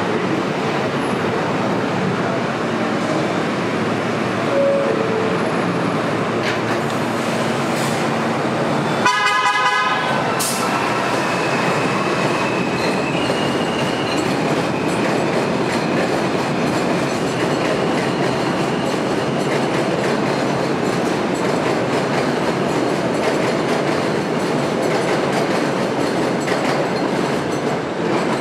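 NYC subway train, an R160 M train, running through an elevated station with a steady loud rumble of wheels on the rails. It sounds a short horn blast about nine seconds in. A thin high whine carries on through the second half.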